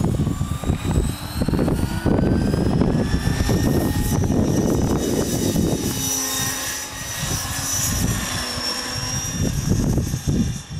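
Electric RC helicopter (Gaui Hurricane 550) whining as it lifts off and climbs, the motor and rotor pitch rising over the first few seconds, then a steady whine as it flies high overhead. Wind buffets the microphone with a low rumble, heaviest in the first half and again near the end.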